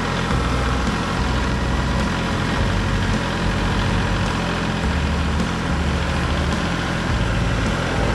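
Kubota compact tractor's diesel engine running steadily as the tractor drives slowly forward with its loader forks lowered.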